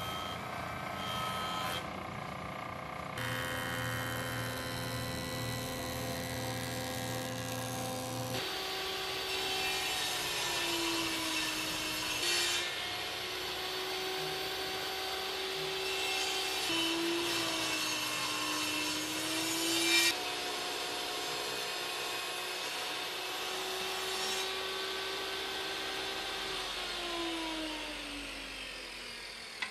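A jointer runs briefly, then a table saw runs and rips boards. The blade's steady whine sags in pitch twice as it cuts through the wood, and near the end the motor spins down with a falling pitch.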